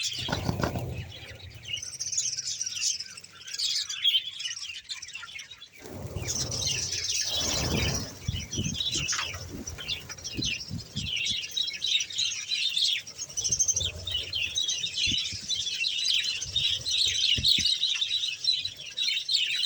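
A large flock of budgerigars chirping and warbling together in dense, unbroken chatter. A low rush of noise comes through twice, near the start and about six to eight seconds in.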